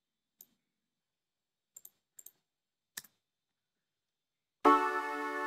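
Several faint computer mouse clicks, some in quick pairs. About four and a half seconds in, a Strobe 2 software synthesizer chord starts and is held, the loudest sound here.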